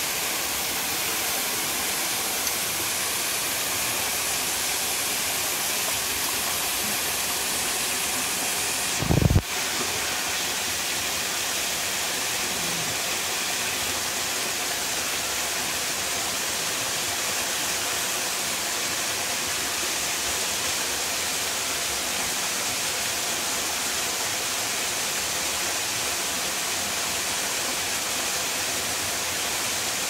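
Small waterfall pouring down a rock face into a shallow pool, a steady rush of falling water, with one brief low thump about nine seconds in.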